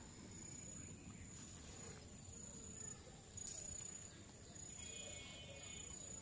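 Insects calling steadily: a constant high buzz with a pulsing higher note repeating about twice a second, over low outdoor background noise. One short sharp sound about three and a half seconds in.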